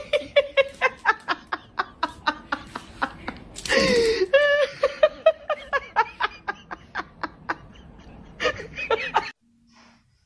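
A person laughing hard in quick repeated bursts, with a louder shriek about four seconds in; the laughter cuts off suddenly near the end.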